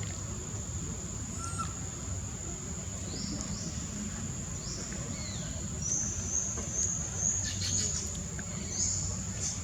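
A run of about six short, high-pitched rising chirps or squeaks from an animal, after a few scattered high calls, over a steady high insect drone.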